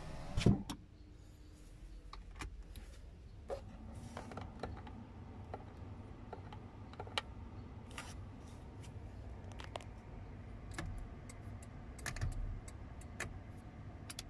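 A power window finishing its travel with a thump about half a second in, followed by a run of light, scattered clicks and taps inside the car cabin.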